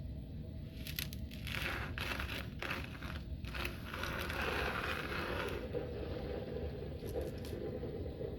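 Kinetic sand being handled up close, squished and cut: a few sharp clicks about a second in, then several seconds of dense sand noise that dies away past the middle, and a few light ticks near the end.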